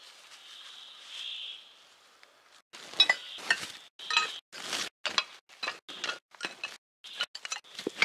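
Pieces of old scrap iron clinking and clanking against each other as they are handled and packed into a bag. The clanks start suddenly about two and a half seconds in and come in irregular strokes, roughly two a second.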